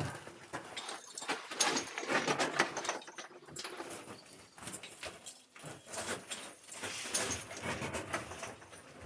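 Footsteps crunching and scuffing on glacier ice and snow, an irregular run of short crackles.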